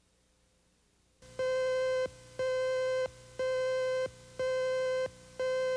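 A steady, buzzy electronic beep tone switching on and off about once a second. There are five beeps, each a little over half a second long, starting just over a second in; the last is cut short. It is the identification tone that goes with a TV station's slate card on videotape.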